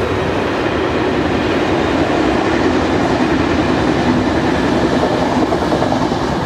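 Intercity passenger coaches running past at speed: a steady, loud rolling rumble of steel wheels on rail.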